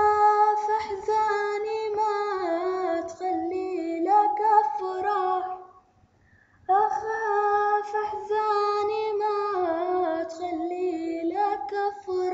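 A female voice singing alone in long, drawn-out phrases with a wavering, ornamented melody, breaking off briefly about six seconds in before the next phrase.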